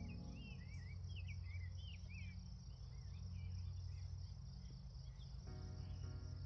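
Soft background music of sustained chords fades out about half a second in and comes back with repeated chords near the end. In between, a small songbird sings a run of quick, high warbling whistles over a steady faint hiss and low hum.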